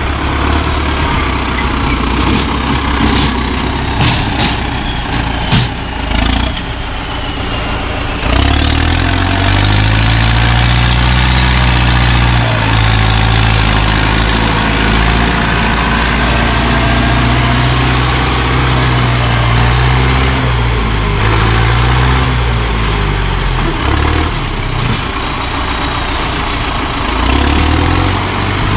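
Heavy diesel engine running steadily, growing louder and deeper about eight seconds in, with a faint high whine rising and falling above it. A few sharp clacks come in the first several seconds.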